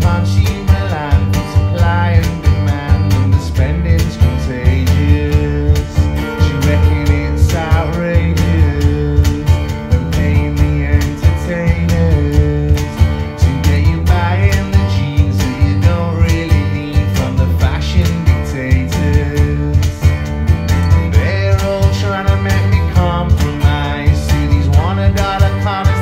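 Music played back over a high-end hi-fi system through tall floor-standing loudspeakers: a track with deep, heavy bass and a steady beat.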